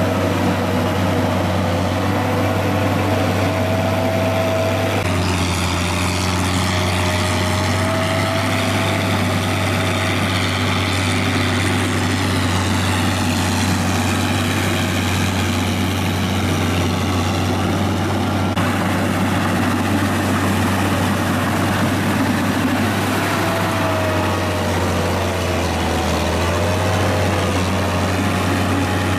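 Small crawler tractor's engine running steadily as it drives a rear rotary tiller through flooded paddy mud, with a constant low hum and a wavering higher whine. The sound shifts abruptly twice, about five seconds in and again past the middle.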